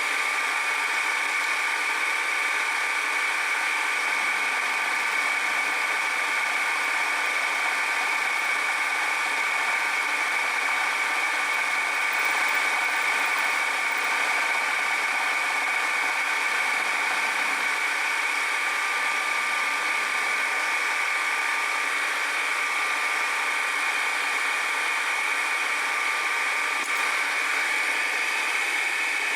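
A machine tool's electric motor running steadily, an even whine that holds level with no starts, stops or breaks, heard while a gear's teeth are being machined pass by pass.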